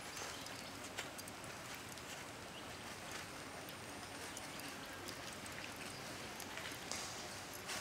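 Squid on a stick sizzling quietly over charcoal embers, a soft steady hiss with a few sharp crackles, one about a second in and two near the end.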